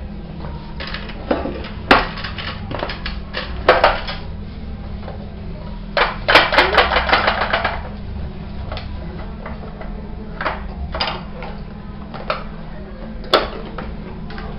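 Small plastic toy containers, lids and a lunchbox being handled on a stone countertop: scattered clicks and knocks, with a burst of rapid clattering about six seconds in that lasts nearly two seconds. A steady low hum runs underneath.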